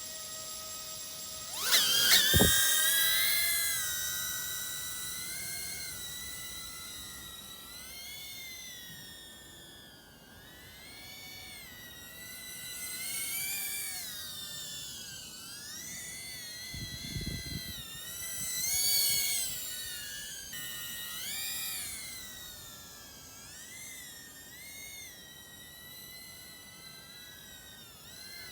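CaddxFPV Protos tiny whoop drone's small motors whining in flight, the pitch sweeping sharply up about two seconds in and then rising and falling with the throttle. A low thump about two seconds in and another around seventeen seconds.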